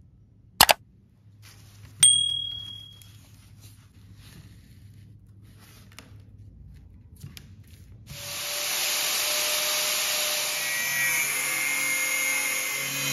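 A sharp click, then a bell-like ding with a ringing tone. About eight seconds in, an angle grinder's cut-off disc starts cutting into a steel file: a loud, steady grinding noise with faint whining tones through it.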